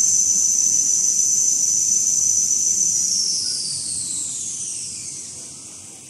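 High-pitched whine of the toilet paper rewinding line's drive running at speed, holding steady, then falling in pitch and fading from about three seconds in as the machine winds down.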